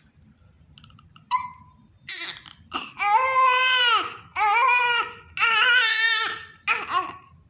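Newborn baby crying: after a short lull, a run of wails about a second long each, separated by quick breaths.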